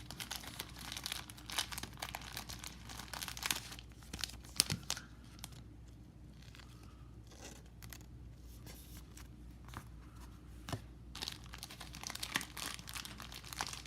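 Thin plastic card sleeves crinkling and rustling as trading cards are slid into them: a run of small crackles and clicks, busiest at the start and again near the end, sparser in the middle.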